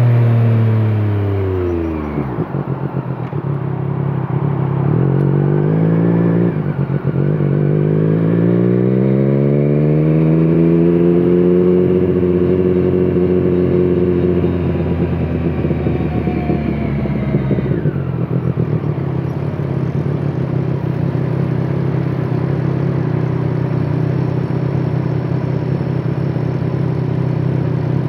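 2017 Triumph Street Triple 765 RS's inline-three engine through a Scorpion Serket Taper carbon exhaust. Revs drop steeply over the first two seconds, run unevenly with some crackling for a few seconds, then rise gently and ease off. About eighteen seconds in the engine settles to a steady idle.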